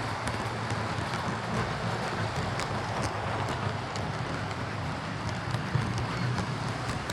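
Hornby Class 43 HST OO gauge model locomotive running steadily along the track: a continuous motor-and-wheel hum with scattered light clicks from the wheels on the rails.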